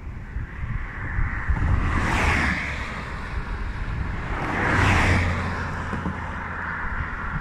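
Two vehicles passing close by on the road, each a rush of tyre and engine noise that swells and fades, about two seconds in and again about five seconds in, the second leaving a low engine hum. Wind buffets the microphone throughout.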